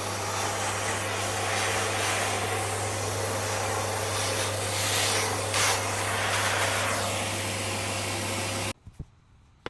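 Paper-bag vacuum cleaner running steadily, the suction note shifting a little as the nozzle moves, then switched off and cutting out suddenly near the end.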